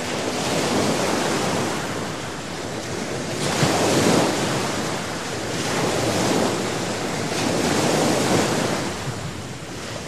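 Sea surf: waves breaking and washing up the shore, swelling and falling back every two to three seconds.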